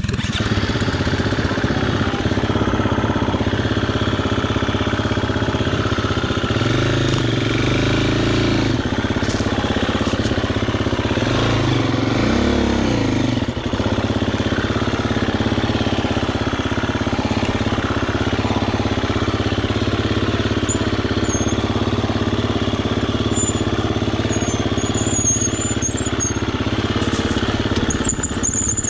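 Husqvarna dirt bike engine running at low speed, with the throttle rising and falling twice, about seven and twelve seconds in.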